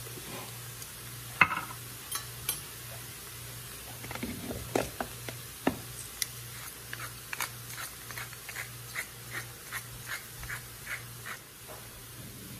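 Salt and pepper being ground over vegetables sizzling faintly in a pan. A sharp knock comes about a second and a half in, then a few more knocks, then a run of even clicks, about two or three a second, from a pepper mill being twisted. A low hum pulses on and off underneath.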